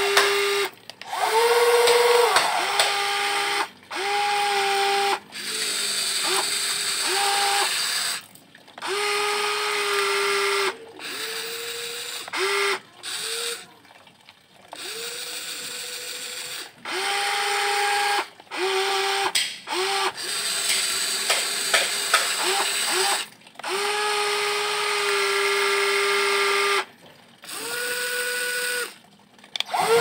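Electric motors of a WLtoys 16800 RC excavator whining in many short runs as the boom, arm and bucket move. Each run rises briefly in pitch as it starts, holds a steady tone, then cuts off sharply.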